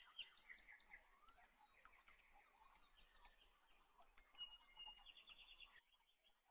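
Near silence, with faint bird chirps and trills in the background, including a quick run of repeated notes about five seconds in.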